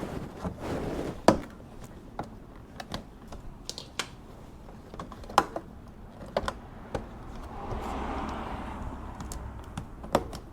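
Scattered light clicks and taps of a rear bumper vent piece being handled and set against the car's bumper for a test fit, with a few sharper knocks and a soft rubbing noise about three quarters of the way through.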